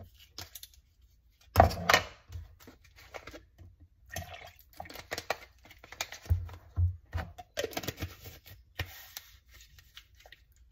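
A plastic shaker cup being handled and its lid fitted: a run of irregular knocks and clatters, the loudest about two seconds in, with some liquid sounds.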